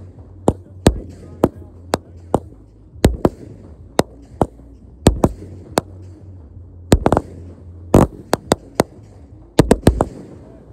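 Fireworks going off in quick, irregular succession: sharp bangs about two a second, several coming in close pairs, some trailed by a brief hiss.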